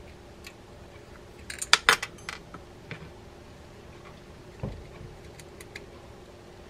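Small metal parts of a 1930s direct-drive casting reel clinking as the frame, side plate and screws are handled during reassembly. There is a quick cluster of sharp metallic clicks about two seconds in, then a duller knock a few seconds later and a few faint ticks.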